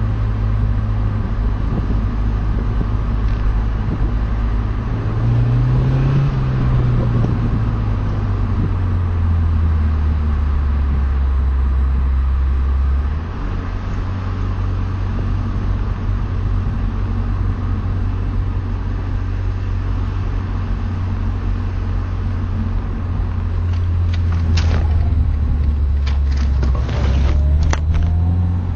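BMW Z4 E85 2.0i's four-cylinder engine running with the car under way, its low note rising and falling with engine speed and dropping briefly a little under halfway through. A few short clicks near the end, as the engine note climbs again.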